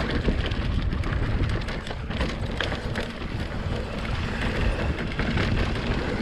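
Norco Range VLT e-mountain bike riding a dirt trail: a steady rumble of tyres and wind on the microphone, with frequent small clicks and knocks from the bike rattling over the ground.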